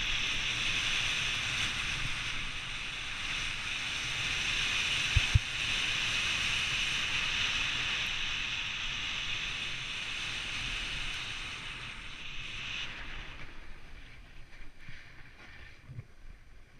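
Snowboard sliding fast over packed snow: a steady hiss of the board on the snow mixed with wind on the microphone, with two quick knocks about five seconds in. About thirteen seconds in the hiss drops away, leaving softer, uneven scraping.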